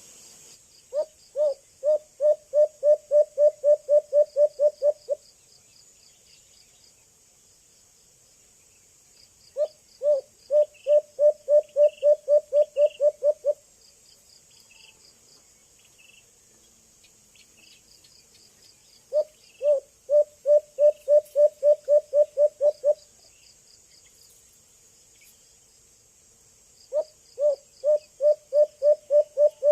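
White-eared brown dove giving its low hooting call: four runs of about a dozen quick, evenly spaced hoots, each run lasting about four seconds with pauses of several seconds between, the first notes of each run a little more spaced. Insects chirp steadily and faintly behind.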